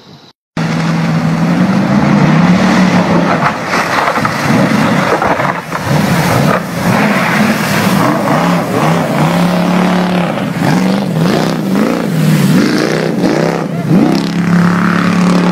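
A small motorboat's engine running hard and revving up and down again and again, with water rushing and spraying as the boat drives through a shallow creek.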